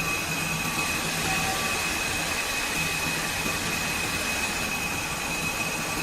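Factory machinery of a fiber cement board production line running steadily: a constant noise with a high whine, and a low hum that cuts in and out.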